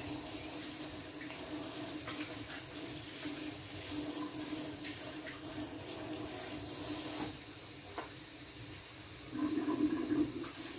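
Binangkal, sesame-coated dough balls, deep-frying in a pot of hot oil: steady sizzling and bubbling that eases off about seven seconds in. A brief louder low sound comes near the end.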